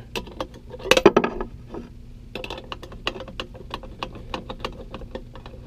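Light metallic clicks and rattles from a rebuilt GM power steering pump being handled, with a louder rattle about a second in. From a little past halfway the clicks settle into a steady series of about four a second.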